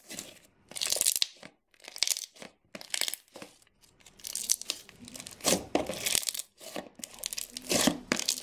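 Crunchy yellow slime with fizz snow flakes and foam beads mixed in, squeezed and pressed by hand. It gives a string of short crunching squishes, about one a second, with brief gaps between them.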